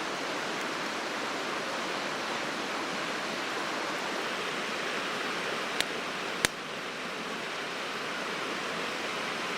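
Steady rushing of a flowing river. Two sharp clicks sound a little past halfway, about half a second apart.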